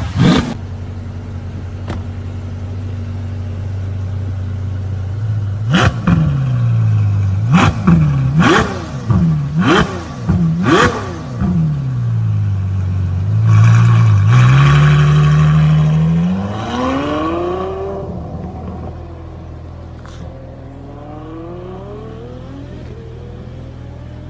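Ferrari F12berlinetta's V12 idling, then blipped sharply five times in quick succession. It then holds a high rev and pulls away, the pitch rising as the car fades into the distance. A short rev from another car is heard at the very start.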